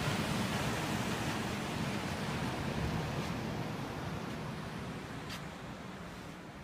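Ocean surf at the shoreline: a steady, even wash that slowly grows fainter.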